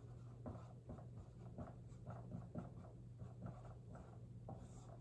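Dry-erase marker writing capital letters on a whiteboard: a quick run of faint, short scratching strokes, one after another.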